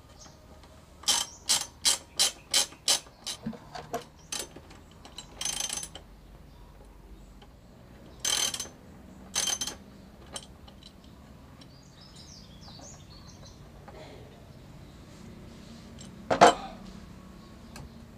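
Socket ratchet wrench clicking as the muffler mounting bolts are cracked loose: a quick run of about eight clicks, then scattered single strokes. One loud sharp knock near the end.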